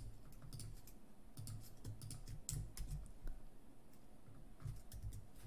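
Computer keyboard being typed on: faint, scattered keystroke clicks in a few short runs.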